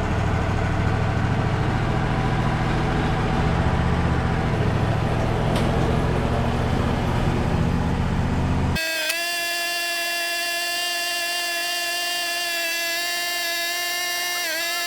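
Wood-Mizer LT35 sawmill running with a steady, low engine drone. About two-thirds of the way through it cuts off abruptly and a steady, horn-like tone with a clear pitch takes over, dipping briefly near the end.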